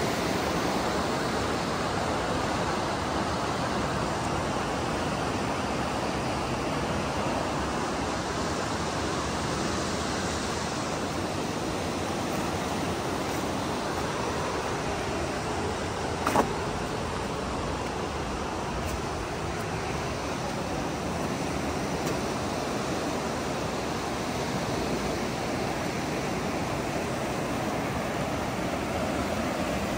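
River water rushing steadily through a rocky gorge, with one sharp knock a little past halfway through.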